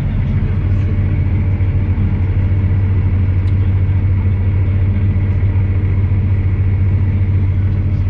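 CLAAS Axion 930 tractor's six-cylinder diesel engine running with a steady low drone, heard from inside the cab.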